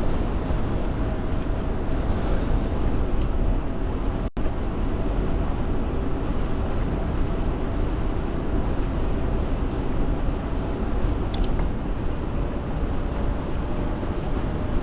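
Wind rushing over the microphone and road noise from a Bafang BBS02 mid-drive e-bike being ridden, steady throughout, with a faint steady whine. The sound cuts out for an instant about four seconds in.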